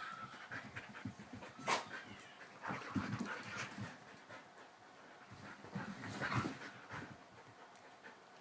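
Two Siberian huskies play-wrestling, panting and scuffling, with louder bouts of tussling about two, three and six seconds in.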